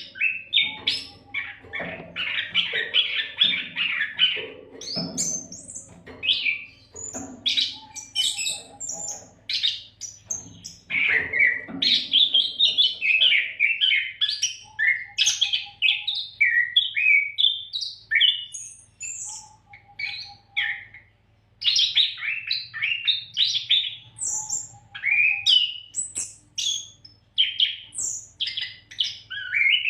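Oriental magpie-robin (kacer) singing nonstop: a long, varied string of quick whistles, chirps and trills, with some harsher, lower notes in the first half.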